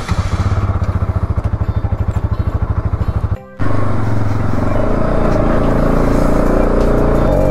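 Bajaj Pulsar NS200's single-cylinder engine idling with an even, rapid pulse, freshly started. About three and a half seconds in it cuts off abruptly, and steadier sound follows: the bike running with music over it.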